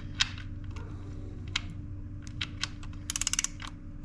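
Ratchet wrench clicking as the oil drain bolt is run back in: a few separate clicks, then a quick run of clicks near the end.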